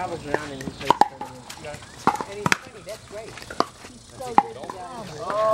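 Pickleball paddles hitting a hard plastic pickleball: a string of sharp, irregular pops, about seven in all.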